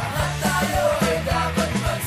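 Music: a song with a singing voice over drums and bass.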